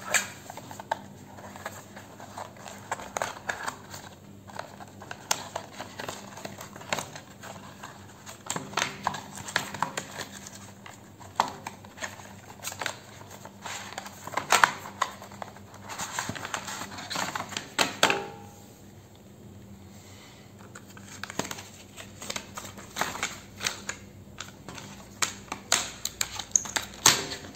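Cardboard retail box and paper insert being opened and handled by hand: irregular clicks, taps, scrapes and rustles of the paperboard packaging, with a brief lull about two-thirds of the way through.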